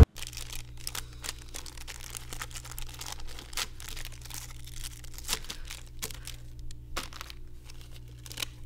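Plastic candy-bar wrappers crinkling and tearing as they are ripped open and handled, in quick irregular crackles, over a low steady hum.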